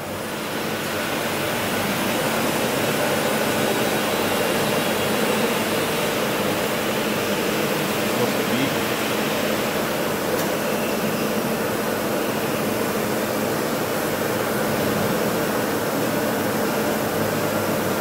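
Union BFT 102 horizontal borer's spindle running at speed: a steady mechanical whir with a constant hum. It swells over the first couple of seconds, then holds level.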